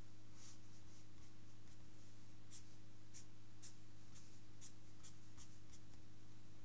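A pen scratching short strokes on paper while sketching. There are faint strokes at first, then about eight crisper strokes at roughly two a second from a little over two seconds in, over a steady low hum.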